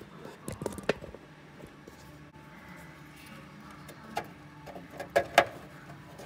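Clicks and knocks of small metal hardware and tools being handled while an air horn compressor is fitted: a cluster of light clicks in the first second, then a single click and two sharper knocks near the end.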